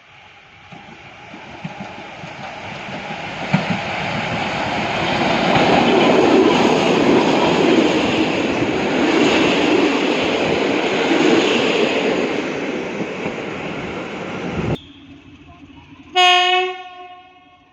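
Passenger train hauled by a class 754 diesel locomotive passing, its rolling and engine noise building over several seconds to a steady peak, then cutting off abruptly. Near the end, one short horn blast from an SM42 diesel locomotive.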